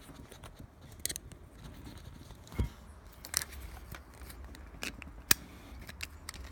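Scattered sharp clicks and small knocks of handling: a 12 V power socket's spring-loaded plastic flip cap and metal body being worked by hand while the socket is fitted to the motorcycle. There is a dull knock about two and a half seconds in, and the loudest click comes a little after five seconds.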